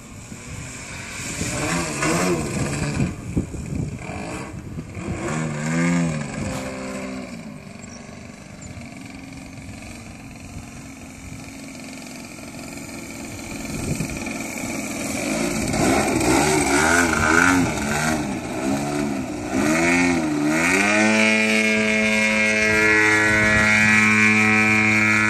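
Piped ZDZ 90 two-stroke gas engine on a large radio-controlled Extra 330, turning a 28×9.5 propeller in flight. Its note rises and falls several times as the plane passes and changes throttle, then holds a steady, louder drone for the last few seconds.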